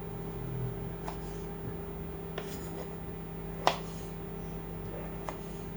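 Knife working through lemon on a cutting board: a few light clicks and a short scrape, then one sharper knock a little past the middle, over a steady background hum.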